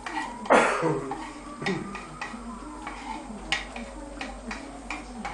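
Kitchen knife scraping chopped parsley off a bamboo cutting board into a frying pan: one loud scrape about half a second in, then a run of sharp taps and knocks of knife and board against the pan.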